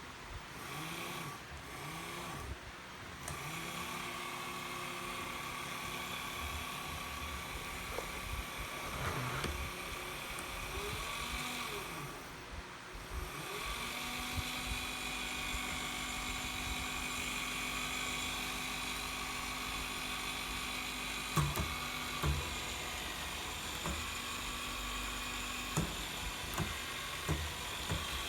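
Desktop milling machine running with a steady high motor whine. In the first few seconds there are short tones that rise and fall in pitch about once a second, and later a few sharp clicks.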